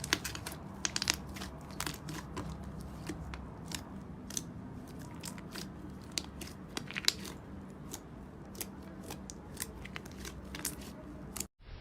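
Slime being squeezed and pressed close to the microphone, giving irregular crunchy crackles and small pops. A brief drop to silence comes near the end.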